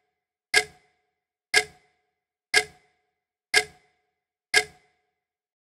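Clock ticking, five sharp ticks about a second apart, each with a short ring, stopping near the end.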